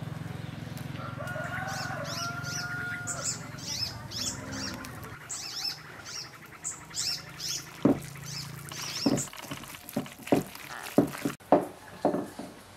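Small birds chirping in quick, repeated downward-sliding calls over a steady low hum. Then comes a run of sharp wet slaps and clicks, the loudest sounds here, from hands working raw meat in a glass bowl.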